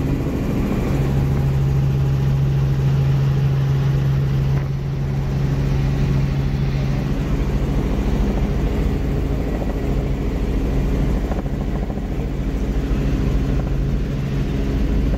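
Helicopter in flight, heard from inside the cabin: a steady engine and rotor drone with a strong low hum.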